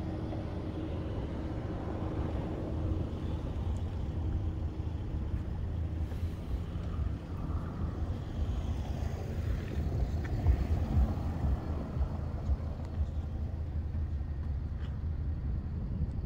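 A low, steady outdoor rumble with a faint hum over it for the first few seconds, a little louder around ten seconds in.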